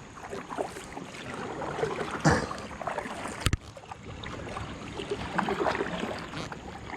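Handling noise aboard a fishing kayak: irregular knocks and rustles over a light wash of water, with a sharp click about halfway through.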